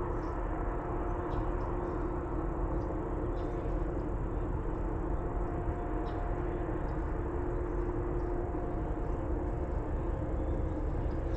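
A car driving on a road: steady low rumble of road and engine noise with a faint, steady drone.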